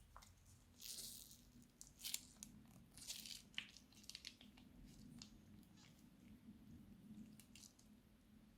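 Crunchy slime being squeezed and worked by hand, giving soft crackling crunches in irregular bursts, loudest about one to three and a half seconds in and fainter after.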